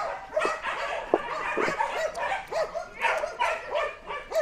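Kennel dogs barking and yipping, a quick run of short, sharp calls several times a second.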